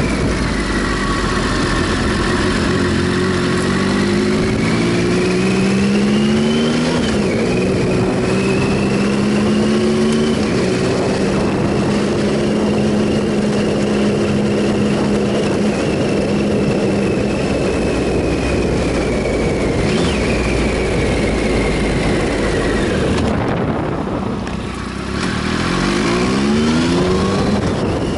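Triumph Sprint ST 1050's three-cylinder engine pulling up through the gears, with two upshifts where the pitch climbs and then drops, then holding steady at cruising revs over a constant rush of wind noise. Near the end the engine eases off briefly and then revs rise again.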